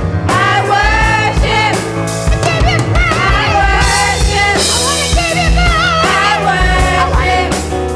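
Live worship music: a singer holding and bending notes with vibrato over a band with drum kit and steady bass.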